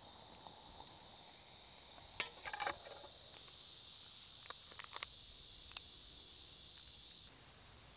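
Insects chirring steadily, with a few light metal clinks and knocks as a steel canteen cup and an alcohol stove's cap are handled and a drink is stirred with a spoon. The loudest clinks come in a quick cluster a little over two seconds in, then single ones follow. The insect sound cuts off suddenly near the end.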